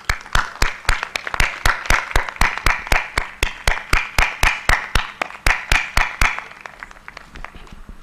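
Audience applauding in a steady rhythm, about four claps a second, with loud, even claps on the beat over the clatter of many hands. It starts suddenly and dies away over the last couple of seconds.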